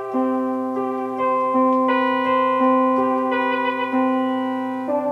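Keyboard instrument playing a slow line of held, sustained notes and chords, changing pitch about once a second.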